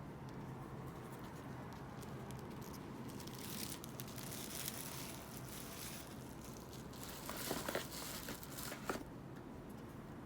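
Crinkling and rustling of an album's packaging being handled and unwrapped, with a few sharp taps and clicks about three quarters of the way through.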